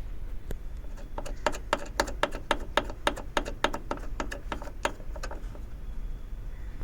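A 12 mm spanner clicking on the lock nut of the accelerator pedal's stopper bolt as it is tightened: a quick, even run of small metallic clicks, about four a second, for some four seconds.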